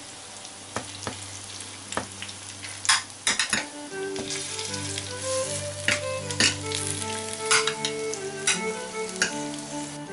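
A fork, then a wire potato masher, pressing soft parboiled potatoes in a glass baking dish: wet squashing with sharp clicks of metal against glass. Background music with sustained notes comes in about four seconds in.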